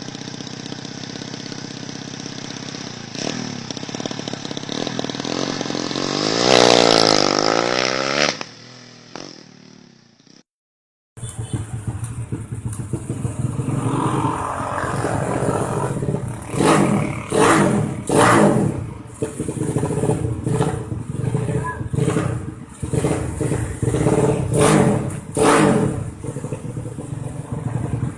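Racing motorcycle engines: first a bike's engine note sweeping up and then down in pitch as it passes, about seven seconds in, then after a brief cut an engine revved in a string of short blips.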